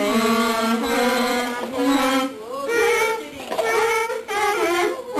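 Girls singing a tune together into paper cups held over their mouths, in held notes that step up and down, with two short breaks for breath.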